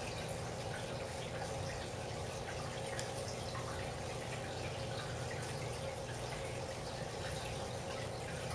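Aquarium water trickling and dripping, with many small scattered ticks of drops over a steady low hum and a faint constant tone.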